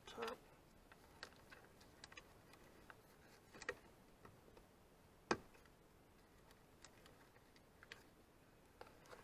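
Scattered small plastic clicks and wire rustles as connector plugs are handled and pushed onto the headers of a 3D printer's control board, the sharpest click about five seconds in.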